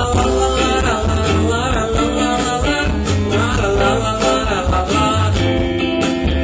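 A band playing live: electric guitar, bass and drums, with a voice singing over them.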